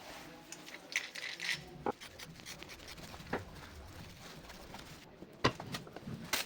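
Scattered small clicks and scrapes of metal bike parts being handled: a short scratchy rub about a second in, then several separate sharp clicks.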